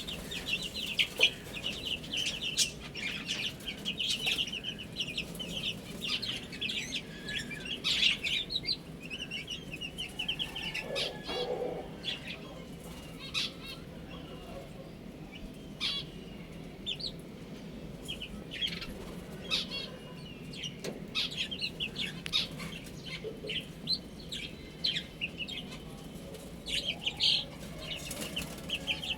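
A group of chicks peeping continuously in short, high chirps, with a few lower clucks, one about a third of the way in and another later on.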